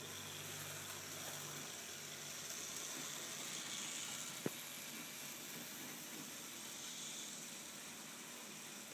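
Z scale GP9 model locomotive running along its track with coal hopper cars: a faint, steady hiss, with one sharp click about halfway through.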